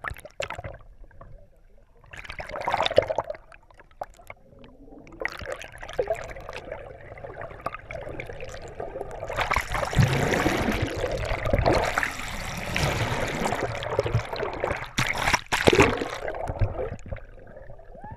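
Sea water sloshing, gurgling and rushing around a camera held at the surface as it dips in and out of the water. Irregular surges at first, becoming louder and more continuous in the second half, with a few sharp knocks near the end.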